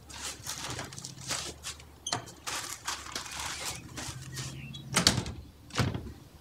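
Crumpled newspaper crinkling and rustling as it is pulled out of a glass door, then two sharp clunks from the door's metal handle near the end.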